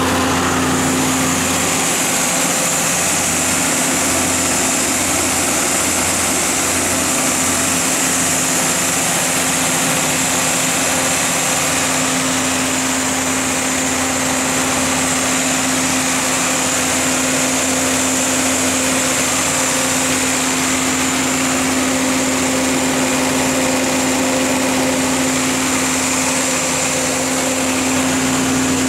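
The Perkins diesel engine of a Caterpillar Olympian D125P1 125 kW generator set running steadily at its governed 1800 rpm, a constant drone with an even high hiss over it.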